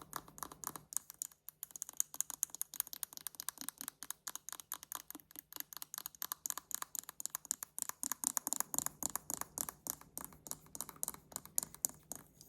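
Fingernails tapping and scratching rapidly on a hairbrush, a dense, irregular patter of small clicks.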